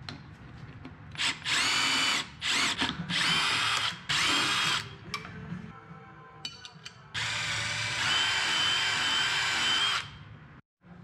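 Milwaukee FUEL cordless drill spinning in several short bursts, each rising to a steady whine, then one longer steady run of about three seconds near the end, drilling holes through a rubber snowmobile track.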